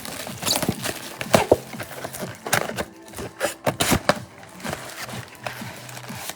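Hands tearing open and handling a box of football trading card packs: irregular crinkling, tearing and knocks of cardboard and foil wrappers.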